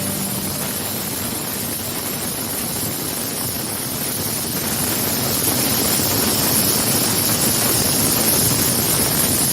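Steady hiss of cooking on the stove, growing a little louder about halfway through.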